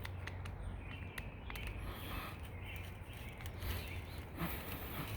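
Screen spline being worked into the corner of a screen door frame: scattered light clicks and rubbing over a steady low hum.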